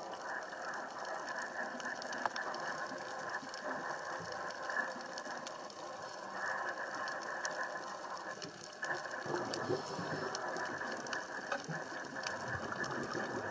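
Underwater reef ambience: a steady crackle of dense fine clicks, dipping briefly about two-thirds of the way through.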